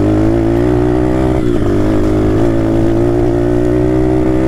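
Small RFZ dirt bike's four-stroke engine running hard at steady, nearly constant revs while riding along at speed. The owner reckons the engine is badly tuned, yet it still pulls to its top speed.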